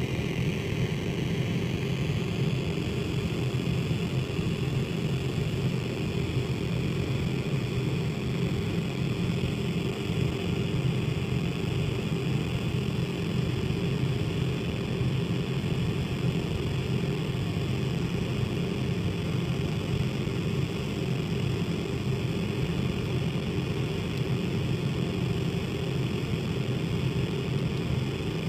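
Casper Electronics Nova Drone analog synthesizer playing a steady low drone with a fast flutter in it, heard dry with no added effects.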